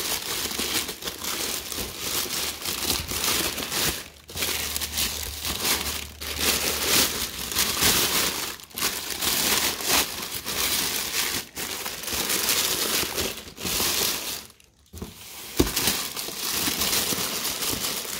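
Thin plastic bag crinkling and rustling as it is handled and pulled off a cardboard box, in stretches with brief pauses. A single sharp click comes about three-quarters of the way through.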